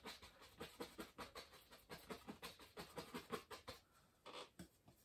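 Faint, quick scratchy taps of a fan brush dabbed down an oil-painting canvas, several a second, thinning out about four seconds in.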